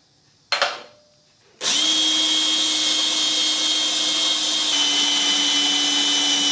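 A single hammer strike on a center punch against steel plate, then a cordless drill starts about a second and a half in and runs steadily, boring a pilot hole into quarter-inch steel plate through a weld. Its pitch drops slightly a few seconds later.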